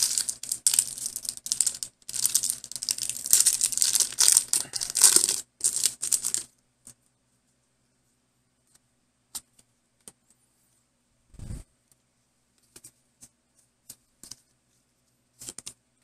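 A Pokémon card booster pack's foil wrapper being torn open and crinkled for about six seconds. After that come only a few soft, scattered clicks.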